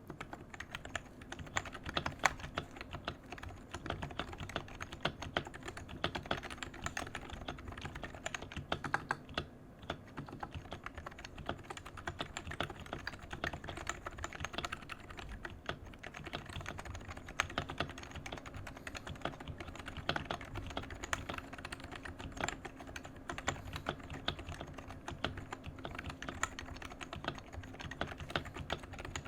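Continuous typing on a Leopold FC660C Topre keyboard fitted with 35 g Deskeys Tiffany domes and KBDfans Silence X dampening rings: a steady, irregular stream of keystrokes.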